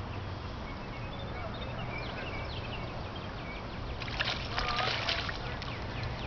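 Hooked largemouth bass splashing and thrashing at the water's surface about four seconds in: a short burst of splashing lasting about a second. Short high chirps, like birds, repeat in the background.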